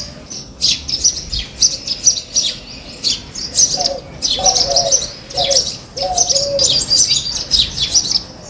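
Backyard birds chirping: a dense run of quick, high chirps throughout, with a few low cooing notes in the middle.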